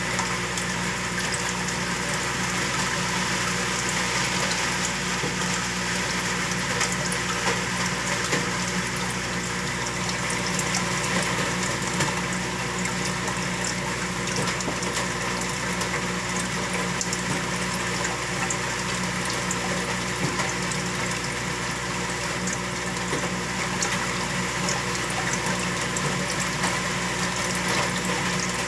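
Saltwater aquarium's circulation pump running steadily: a constant motor hum under the sound of moving water at the tank surface.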